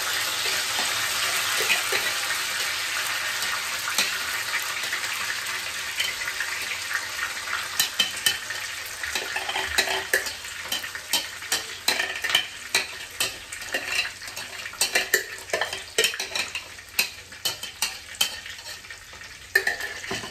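Ground masala paste sizzling and spattering as it hits hot oil in a kadai: a steady hiss, strongest at first and fading over the first several seconds. From about eight seconds in comes a quick string of clicks and taps as a metal spoon scrapes paste from a blender jar and stirs.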